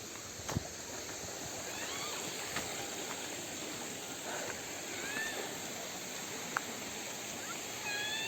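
Steady rush of a waterfall's falling water. A few short, curving calls from an animal come about two and five seconds in and again near the end, and a sharp click comes about half a second in.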